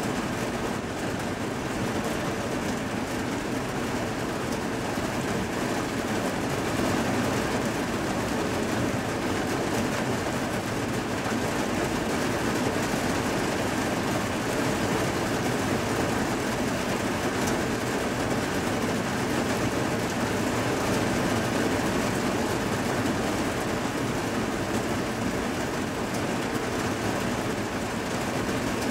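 Steady rain falling in a thunderstorm, heard from behind a rain-streaked window: an even, unbroken hiss.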